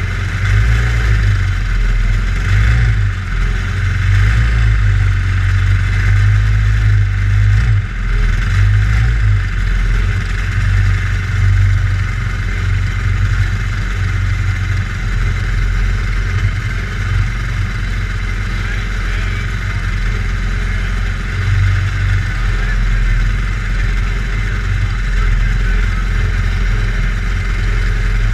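Engine of a small dirt-track race car idling steadily while the car sits still, heard from a camera mounted on board.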